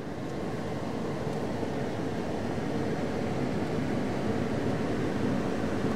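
Strong dust-storm wind rushing and buffeting around a vehicle, heard from inside the cabin as a steady, loud roar that slowly grows louder.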